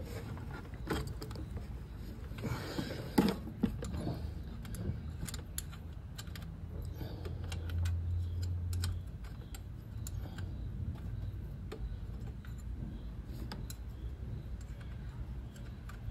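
Scattered light clicks and rattles over a low steady hum. The clicks are loudest and most frequent in the first four seconds, with the sharpest about three seconds in, and grow sparse after that.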